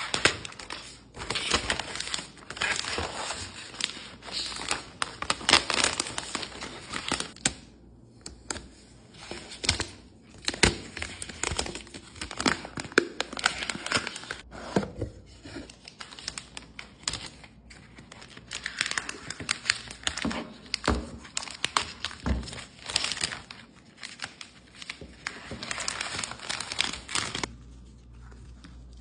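Paper towel crinkling as it is handled and folded by hand, in bursts of crackling with a few short pauses, stopping just before the end.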